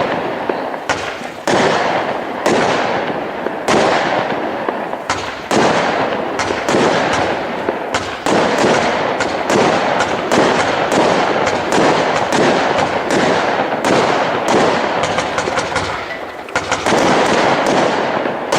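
Consumer display fireworks going off in quick succession: a steady run of bangs, one or two big ones a second, over continuous crackling.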